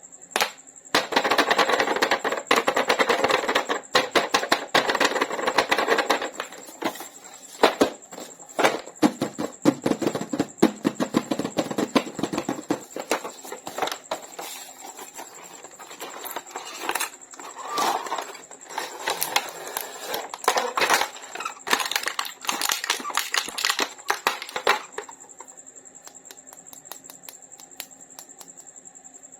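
Packaging being handled and opened: rustling, crackling and many sharp clicks in irregular bursts, dying away near the end. A faint steady high whine runs underneath.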